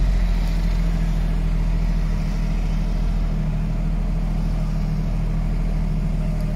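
Tractor running a trailed forage harvester while it picks up cut grass for silage: a steady low engine drone that holds even throughout.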